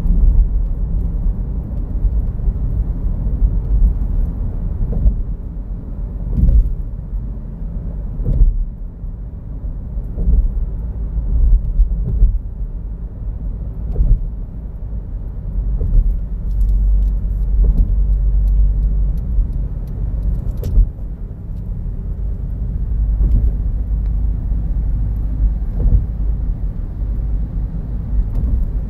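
Road and engine noise inside a moving car: a steady low rumble, with a few brief louder thumps.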